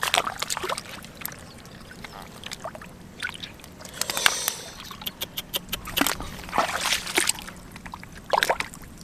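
Hands splashing and sloshing in shallow muddy water, in irregular slaps and splashes, with several louder ones in the second half.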